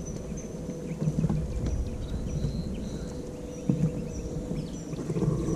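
Wind buffeting the microphone in an uneven low rumble, with a couple of louder gusts, over faint high chirping calls.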